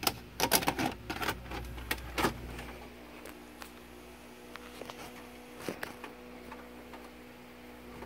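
A quick run of sharp clicks and knocks from hands handling things on a media shelf, dying away after about two seconds, then a faint steady electrical hum with a few light ticks.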